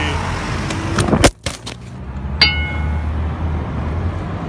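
Low rumble of road traffic, with a sharp knock about a second in and a short ringing metallic clink a little after.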